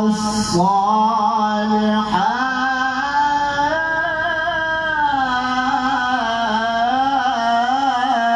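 A man reciting the Quran solo in the melodic competition style (tilawah), amplified through a handheld microphone. He draws out long held phrases whose pitch slides and wavers in ornaments, with a brief hiss at the start.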